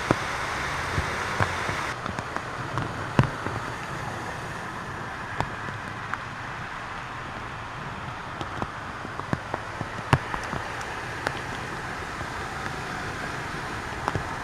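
Heavy rain falling, a steady hiss with scattered sharp drop impacts.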